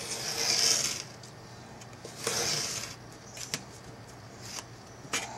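Work knife cutting through cow leather to trim it flush with the board: two cutting strokes about two seconds apart, each lasting under a second, then a few light clicks.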